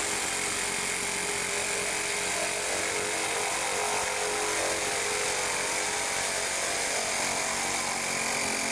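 DeWalt Atomic 20V Max one-handed reciprocating saw running steadily, its 18-TPI blade cutting through 3-inch PVC pipe.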